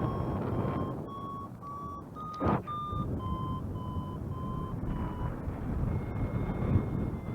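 Flight variometer beeping in short tones, about three a second, the pitch rising and then falling back: the climb signal in a thermal. A steady, higher continuous tone follows near the end, and a short loud sweep about two and a half seconds in, over constant low wind rush.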